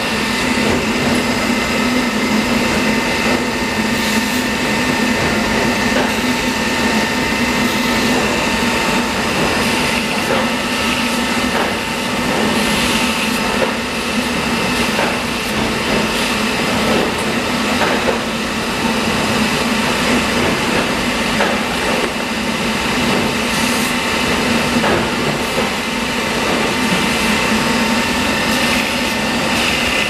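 Abrasive belt grinder running steadily while small metal door-stopper parts are held against the belt and ground. It gives a constant hum and whine, with faint clicks of the parts now and then.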